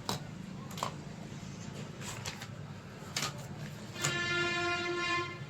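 Electronic board under test on a 12-volt supply: a few sharp clicks of contacts being touched, then about four seconds in a buzzing electronic tone sounds for just over a second before stopping, over a steady low hum.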